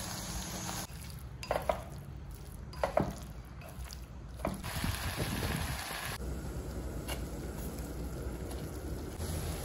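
Chopsticks stirring fried bread cubes in a sizzling clay pot, with a few sharp taps of the chopsticks against the pot. About six seconds in this gives way to the steady bubbling of water at a rolling boil in a steel pot.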